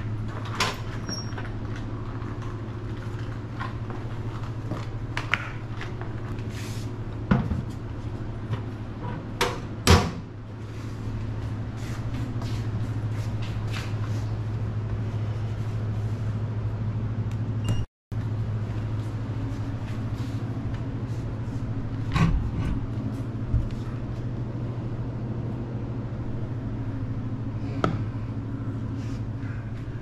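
Metal lockers and doors being handled, with scattered clicks and knocks, the loudest about ten seconds in, over a steady low hum.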